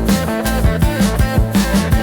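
Psychedelic rock song in an instrumental passage: guitar over bass and a drum kit keeping a steady beat.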